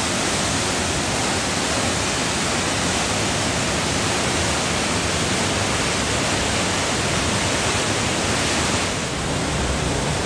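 Steady rush of fast-flowing water close by, an even hiss with no break. Near the end the hiss thins a little and a lower rumble comes up.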